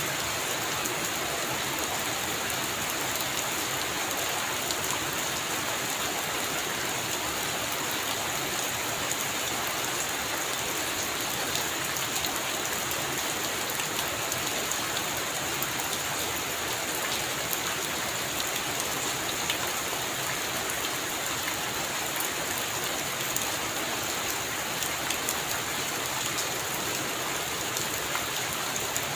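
Heavy rain falling steadily: a dense, even hiss with many fine individual drop hits, holding at a constant level throughout.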